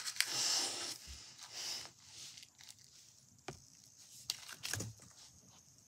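Tissue paper rustling and tearing as it is bitten and chewed, strongest in the first second, then a few short soft knocks.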